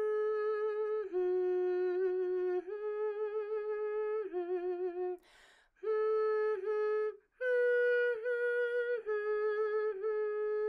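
A woman humming a short children's melody with closed lips, moving between two pitches, so and mi, in held notes with a short break near the middle. About seven and a half seconds in comes a single higher note, the new 'mystery note' above so.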